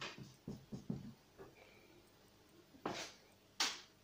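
Felt-tip marker writing on paper: a run of short scratchy strokes, then two longer, louder scrapes near the end.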